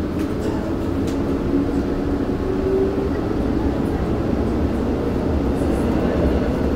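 Seoul Metro Line 2 subway car heard from inside while running between stations: a steady rumble of wheels on rail with a faint motor whine that rises slightly two to three seconds in.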